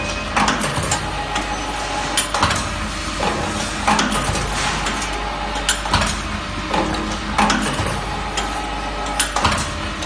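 Automatic wire bucket-handle making machine running, forming wire handles fitted with plastic tubes: a steady low hum under sharp metallic clanks and clinks that come every second or two as it cycles.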